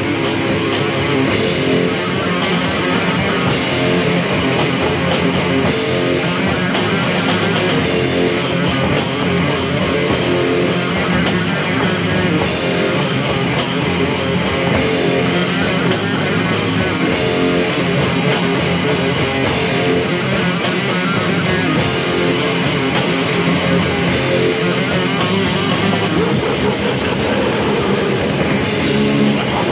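Death/thrash metal song played by a full band: distorted electric guitars, bass and drums. It is a rough rehearsal recording made on a simple stereo tape deck with two microphones.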